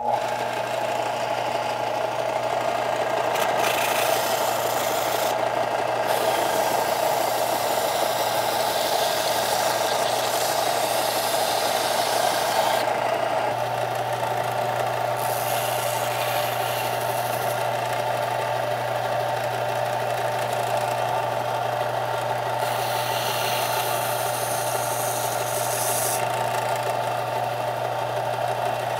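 Belt sander running steadily while the leather edge of an axe sheath is sanded flush and bevelled against the belt. A higher hiss comes and goes over the steady motor hum as the leather is worked.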